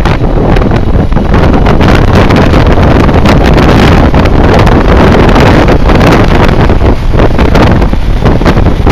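Loud, gusting wind buffeting on the microphone of a camera riding on a moving BMW K1200R Sport motorcycle, with the bike's inline-four engine running at road speed underneath.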